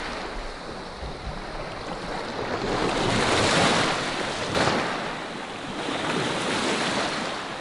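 Small sea waves breaking and washing over a pebble beach, the wash swelling and fading as each wave comes in, loudest a few seconds in.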